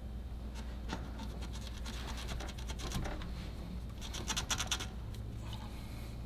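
Gloved hands handling plastic electrical connectors and hoses on an engine, making scratchy rubbing and small clicks, with a quick flurry of clicks about four seconds in.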